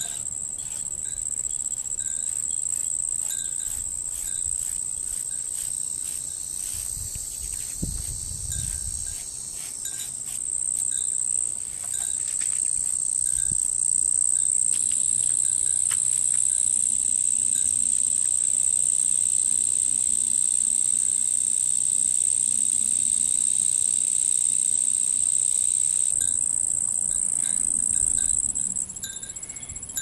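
Summer insects chirring in a steady, high, continuous drone that grows louder about twelve seconds in and drops back near the end.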